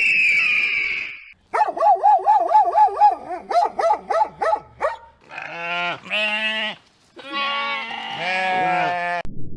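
A run of different farm animal calls in turn: first a high drawn-out call, then a fast wavering call lasting about three seconds, then two long calls that cut off just before the end.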